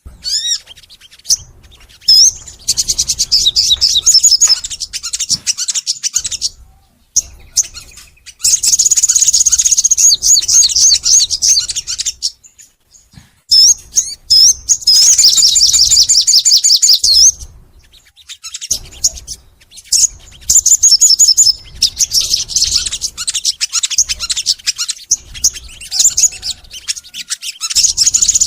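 Crimson sunbird (sogon) singing long bouts of rapid, high-pitched trills, the full energetic 'nembak' song. It comes as four or five bursts of several seconds each, with short gaps between them.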